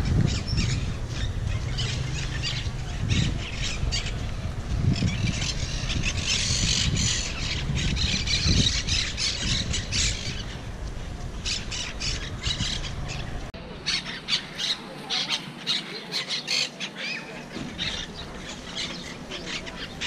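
A flock of monk parakeets squawking and chattering, many short harsh calls overlapping in quick succession. A low rumble beneath them cuts off suddenly about two-thirds of the way through, leaving the calls clearer.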